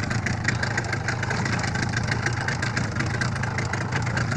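Boat engine idling steadily: a constant low hum with a fast, even chugging.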